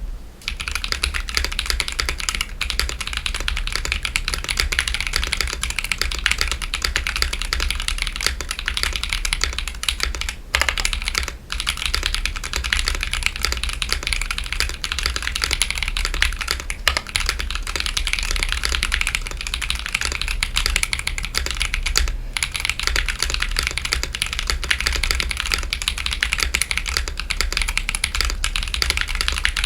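Mechanical keyboard with stock, unlubed Akko CS Lavender Purple tactile switches, a carbon fibre plate and PBT Cherry-profile keycaps in a wooden case, typed on quickly and continuously. The typing pauses briefly about ten, eleven and twenty-two seconds in.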